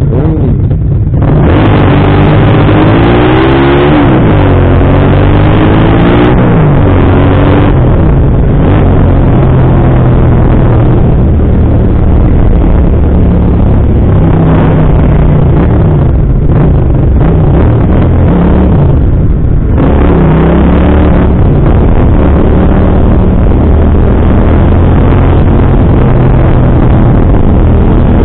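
Motorcycle engine pulling away from a stop, its pitch rising and dropping back through three gear changes in the first several seconds. It then runs steadily at cruising speed, with another brief pull about twenty seconds in.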